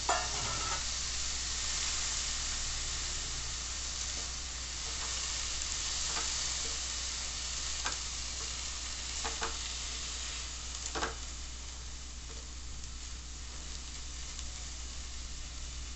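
Green peas, onion, garlic, chillies and chopped coriander leaves sizzling steadily in oil in a frying pan as they are stirred with a spatula, with a handful of short scrapes of the spatula against the pan.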